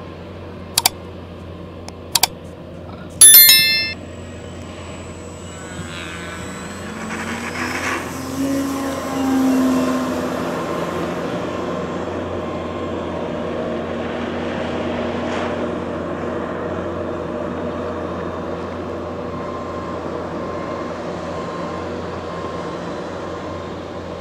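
Two sharp clicks and a ringing bell chime from a subscribe-button animation, then a radio-controlled aerobatic model airplane's engine and propeller rising in pitch as it throttles up for takeoff, settling into a steady drone in flight.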